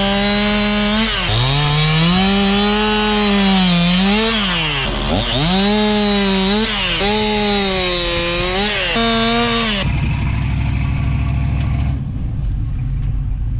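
Chainsaw running at high revs and cutting wood, its pitch sagging and recovering again and again as the chain loads up in the cut. It stops suddenly a little under ten seconds in, leaving a lower, steady engine rumble.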